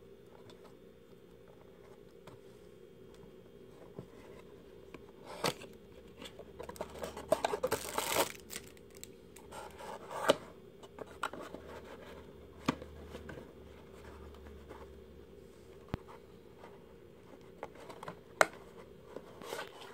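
Cardboard box being handled and opened: the inner box rubs and scrapes as it slides out of its sleeve, with a dense run of scraping a third of the way in and scattered sharp taps and clicks after.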